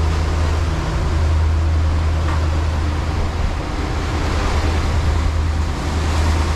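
Fishing boat's engine running steadily under way, a low hum beneath the rush of wind and churning wake water.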